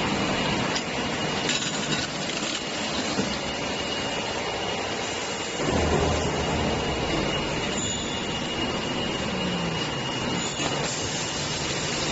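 Bottle washing machine running: a steady mechanical noise with a constant thin high whine, swelling louder and deeper for a moment about six seconds in.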